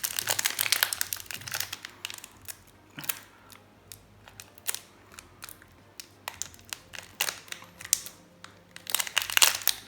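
Foil Magic: The Gathering booster pack wrapper crinkling as it is shaken and handled. A quieter stretch of scattered light ticks runs through the middle, and the crinkling picks up again near the end.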